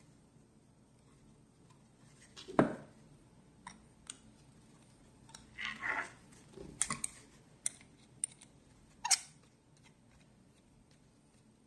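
Scattered clicks and light knocks of small metal lighter parts and a hand tool being handled: a sharp knock about two and a half seconds in, a cluster of clicks and scraping around six to seven seconds, and another sharp click about nine seconds in.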